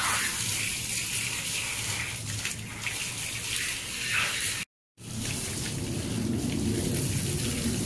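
Water from a garden hose spraying and splashing onto a wet dog's coat and the concrete underneath, a steady hiss. The sound cuts out completely for a moment a little past halfway, then the splashing comes back fuller.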